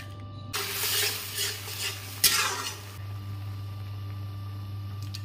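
Metal ladle stirring in a pot of boiling lentils, the liquid bubbling, with a sharp clink of ladle against the pot a little over two seconds in. A steady low hum runs underneath.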